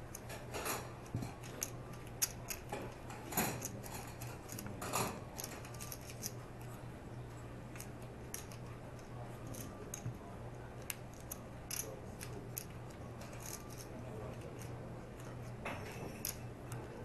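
Poker chips clicking as players handle and riffle them at the table: irregular sharp clicks, with louder clusters in the first five seconds and again near the end, over a steady low hum.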